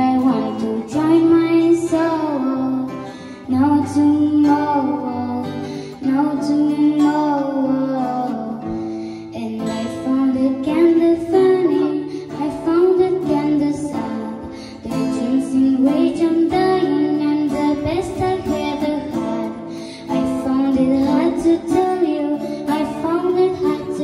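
A girl singing a song into a microphone, accompanied by two strummed acoustic guitars.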